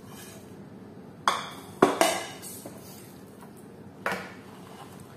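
Kitchen dishes and utensils clinking and knocking: one sharp hit about a second in, two close together near two seconds, and another about four seconds in, each ringing briefly.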